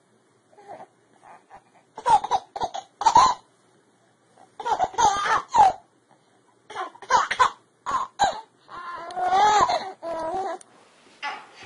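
Baby laughing in about four bouts of high-pitched, squealing laughter with short pauses between them.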